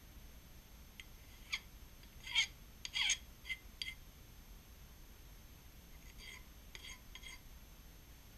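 Hand file rasping in short strokes along the edge of a small metal lathe half nut, taking off burrs. The strokes come in two groups, the loudest about two and a half and three seconds in.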